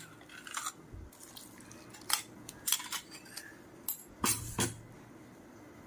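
Kitchen utensils and dishes clinking and knocking, about seven separate sharp knocks spread through the few seconds.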